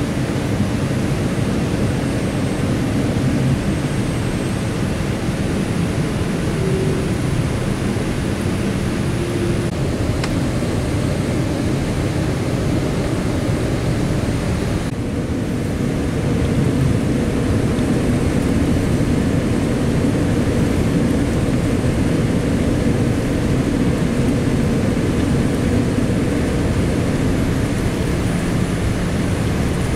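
Steady rushing cabin noise inside a jet airliner on its descent toward landing: engine and airflow noise, a little louder from about halfway through.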